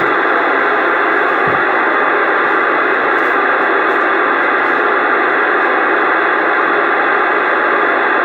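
CB radio hissing loudly with static, a steady rush of noise through the radio's narrow speaker band with faint steady tones in it.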